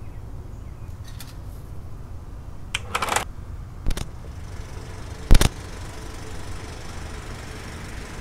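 Reel-to-reel tape recorder's piano-key controls clicking and clunking as they are pressed, over a steady low hum: a light click about a second in, a cluster near three seconds, another click near four seconds, and the loudest clunk about five and a half seconds in.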